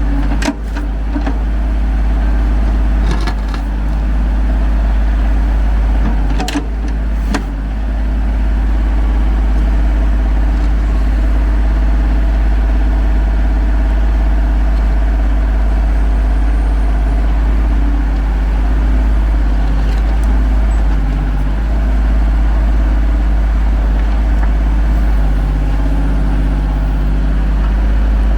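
Ford 1520 tractor's diesel engine running steadily as the backhoe works, its pitch shifting now and then with the load. A few sharp knocks come in the first eight seconds.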